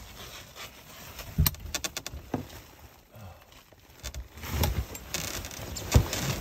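Scattered knocks, clinks and rustles of someone moving about and rummaging through tools and materials, with the sharpest knock near the end.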